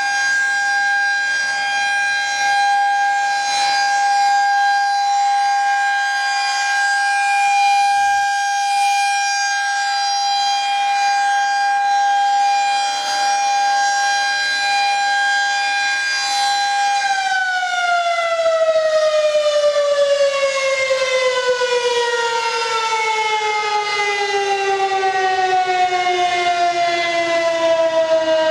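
Federal Signal 2001-SRN outdoor warning siren sounding a steady, high-pitched test tone. A little past halfway through, its pitch starts to fall in a long, slow downward glide that is still going at the end.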